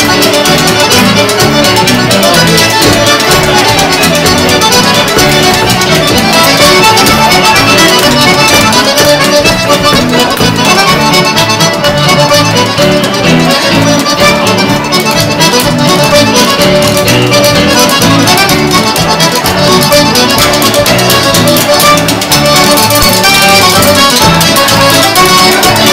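Lively Québécois folk tune on accordions, with spoons clacking a quick, steady rhythm over it.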